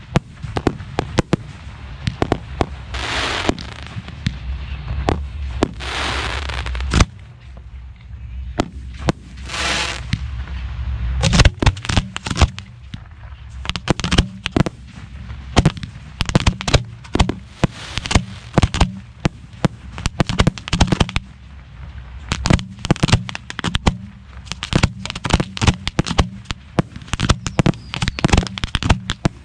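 A 1.3G professional fireworks display heard from the firing line: a steady string of sharp bangs from shells being fired and bursting, with a few longer crackling stretches in the first third, then a dense rapid barrage of bangs for the rest.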